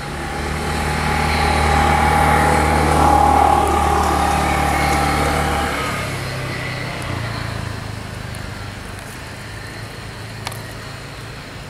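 A motor vehicle passing by: its engine grows louder to a peak about three seconds in, its steady low hum shifts about six seconds in, and it fades away, with a faint click near the end.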